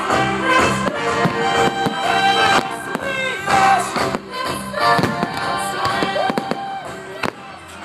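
Aerial firework shells bursting overhead, many sharp bangs in quick succession, over loud pop music with singing.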